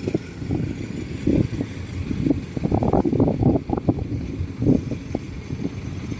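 Farm machinery engine running in the field, with uneven gusts of wind buffeting the microphone.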